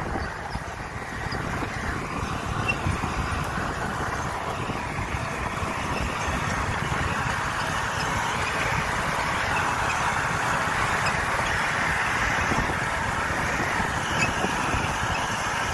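Massey Ferguson 9500 tractor's diesel engine running steadily under load while pulling a tillage implement through dry soil.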